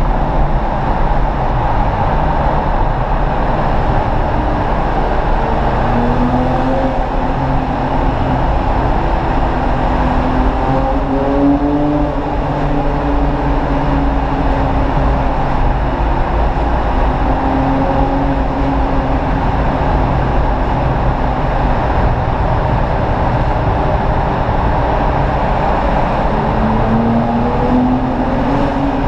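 BMW 135i's turbocharged straight-six through its performance exhaust, heard from inside the cabin while driving through a road tunnel. A steady drone of engine and tyre noise, with the engine note rising in pitch several times.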